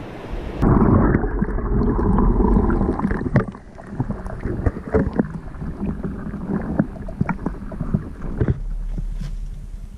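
Surf and wind for the first moment, then, after a sudden cut, water sloshing and churning with scattered clicks and knocks, heard dull and muffled from a camera submerged in a container of water holding sand crabs. Near the end this gives way to a steady low hum.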